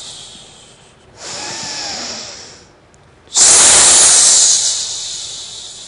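Forceful, hissing breaths close to a microphone, done as a qigong breathing exercise. A loud breath dies away in the first second, a softer one follows about a second in, and a loud breath starts suddenly about three and a half seconds in and slowly fades.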